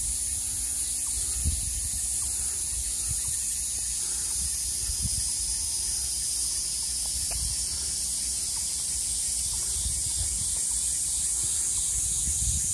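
Steady high-pitched insect chorus, with irregular low rumbles underneath.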